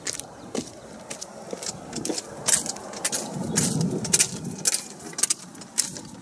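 Irregular sharp clicks and taps, with a low rumble that swells around the middle.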